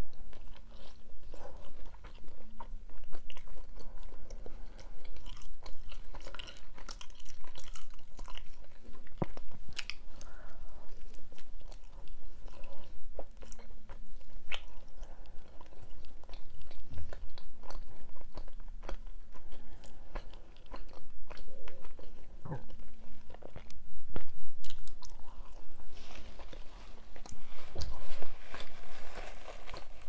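Close-miked biting and chewing of mini pizza: mouth sounds with many small clicks, busiest near the end.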